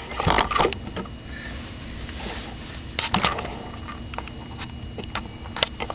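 Handling clicks and knocks as the camera is moved in closer, in clusters near the start, about three seconds in and near the end, over the steady hum and faint high whine of a Mac Pro tower working under load, exporting a video.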